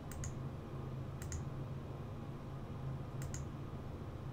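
Computer mouse button clicked three times, each click a quick press-and-release double tick, over a faint steady low hum.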